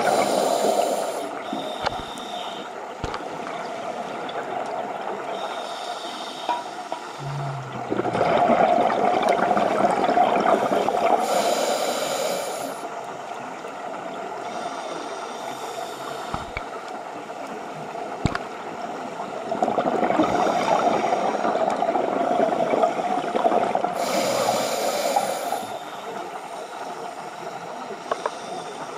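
Scuba diver breathing through a regulator: a hiss on each inhalation and a long rush of gurgling exhaust bubbles on each exhalation, slow and regular, about ten seconds apart.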